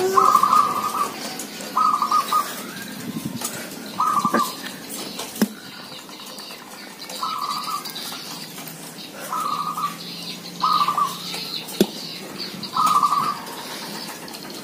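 Caged zebra doves (perkutut) cooing, a short phrase every one to three seconds, about eight in all. Fainter high chirps sound above the coos.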